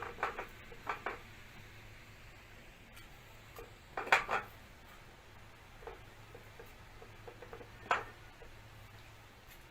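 Whole lemons being packed into a glass jar: a few scattered knocks and clinks against the glass, the loudest about four seconds in.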